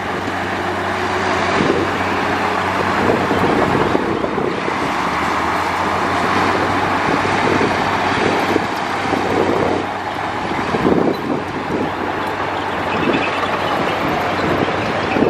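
Heavy diesel earthmoving machinery running steadily at working revs, with irregular clanking and rattling that gets busier from about ten seconds in.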